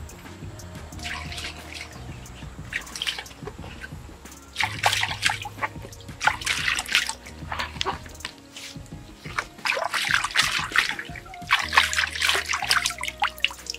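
Hands splashing shallow stream water over a banana flower to wash it, in several bursts of splashing, with background music underneath.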